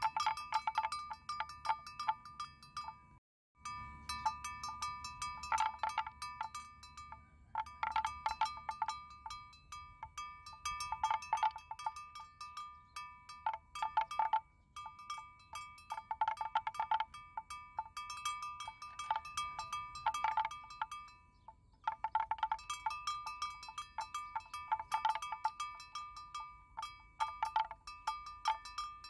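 Metal neck bells on water buffaloes clanking in irregular clusters of strikes, ringing on between strikes. The sound cuts out for a moment about three seconds in.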